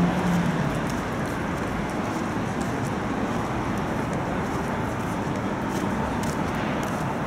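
Steady outdoor city background noise, mostly road traffic, with a short low hum right at the start.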